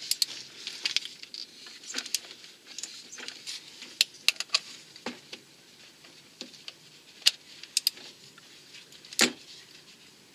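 Light metallic clicks and taps from a wrench and gloved hands at the crankshaft pulley bolt while the crankshaft is turned by hand, with one louder click about nine seconds in.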